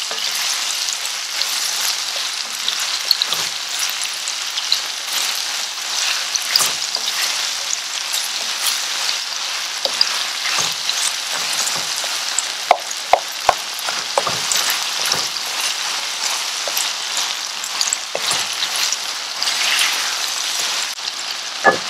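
Sliced onions, bell peppers and tomatoes frying in very hot olive oil on high heat: a steady sizzle, with a wooden spoon stirring and knocking against the pan, several knocks about two thirds of the way through and a sharper one at the end.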